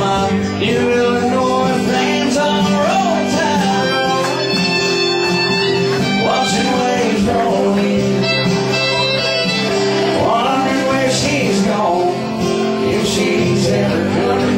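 A small band playing live, with acoustic guitar in the mix; the music runs on steadily without a break.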